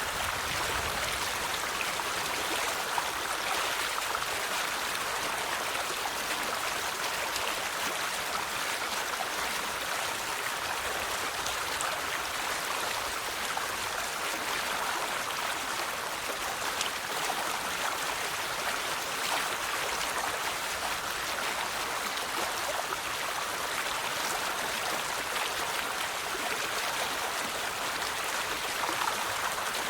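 River water flowing steadily over rocks, a constant rushing and splashing with no change in level.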